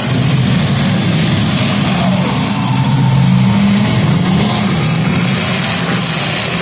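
Several demolition derby cars' engines running and revving together: a loud, steady din whose pitch wavers up and down.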